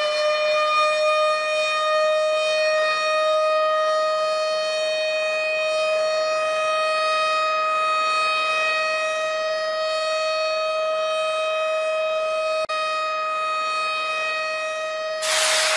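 Air-raid siren wailing on one held pitch, rising slightly at first and then steady. About fifteen seconds in, a loud rushing whoosh starts over it.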